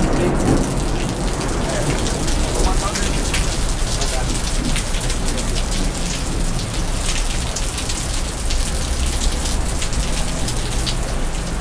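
Steady rain falling, with many separate drops striking close by. The tail of a thunder rumble dies away in the first second.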